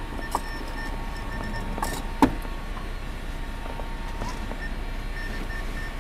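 Steady vehicle noise, as heard from inside a car, with a few sharp clicks; the loudest click comes a little over two seconds in.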